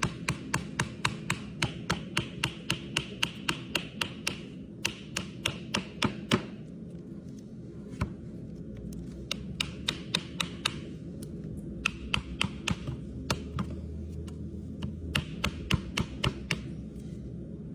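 Rapid sharp taps of a farrier's tool chipping at the hard, overgrown frog of a horse's hoof, about three a second, in runs broken by short pauses, over a steady low hum.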